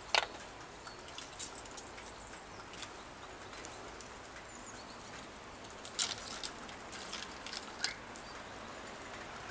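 Quiet outdoor ambience: a steady hiss with scattered sharp clicks and taps, the sharpest just after the start and about six seconds in, and a few faint high bird chirps.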